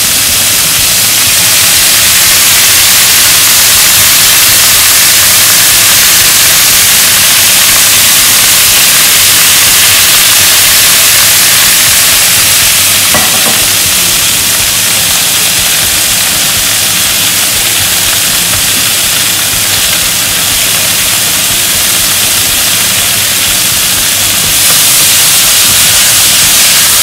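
Chopped vegetables searing in hot oil in a sauté pan: a loud, steady sizzle. About three seconds before the end the pan is shaken to toss the vegetables and the sizzle grows slightly louder.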